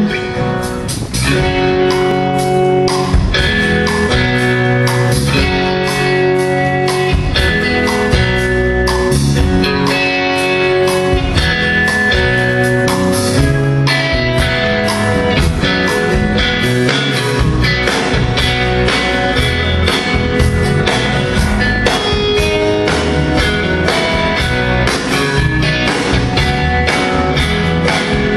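Live country band playing at a sound check: guitars over a steady beat of drum hits, loud and continuous.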